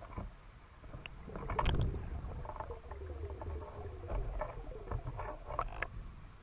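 Muffled underwater sounds of a diver moving with a speargun: scattered clicks and knocks, a low rumble, and a faint wavering tone through the middle.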